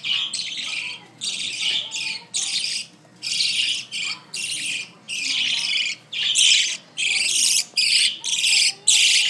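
Budgerigars giving harsh, scratchy chirping calls in repeated bursts, a little faster than one a second.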